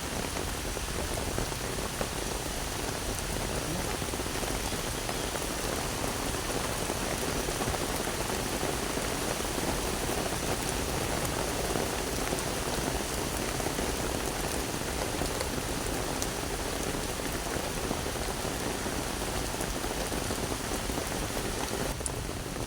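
Steady rain falling on the surroundings, an even hiss with a few scattered individual drop ticks.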